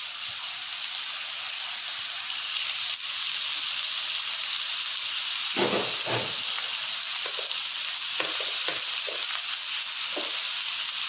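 Sliced onion, green capsicum and carrot sizzling in hot oil in a frying pan, a steady hiss. From about halfway on, a wooden spatula stirs the vegetables with a few short knocks and scrapes.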